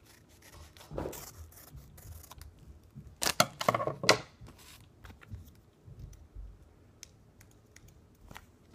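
Scissors snipping through a cardboard sticker package: a cut about a second in, a loud cluster of snips about three to four seconds in, then light ticks and rustles of the package being handled.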